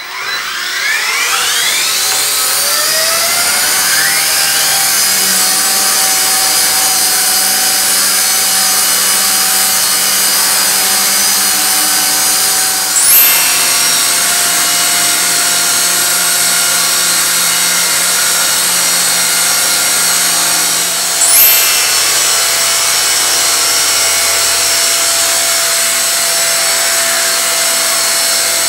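Several micro RC helicopters' small electric motors and rotors spooling up, their whines climbing in pitch over the first few seconds, then holding a steady many-toned whine as they hover together. Two brief swooshing sweeps break in about 13 and 21 seconds in.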